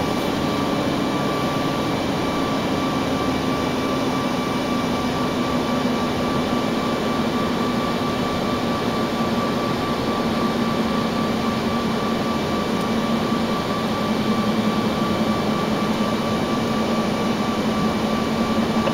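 Steady engine and road noise inside a moving vehicle: a low drone with a constant high-pitched whine over it.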